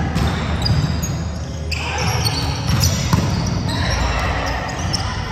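Indoor court game in a gym: a ball thumping, short high squeaks from sneakers and players' voices, all echoing in a large hall.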